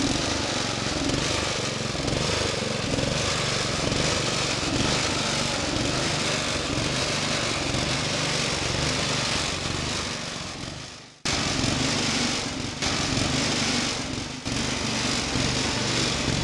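GT-14 garden tractor's small engine running steadily as the tractor is driven. About eleven seconds in the sound fades away, then cuts straight back in at full level.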